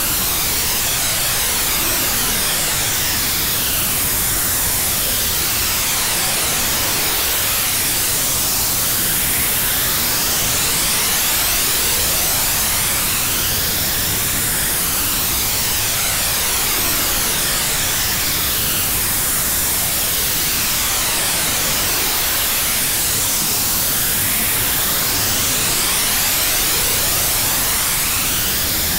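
Steady, loud electronic hiss of white noise whose tone sweeps slowly up and down again and again, like a phaser-swept whoosh, used as a frequency test signal.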